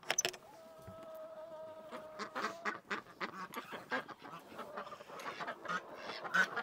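Domestic ducks and geese calling, a quick run of quacks and honks that grows busier and louder toward the end.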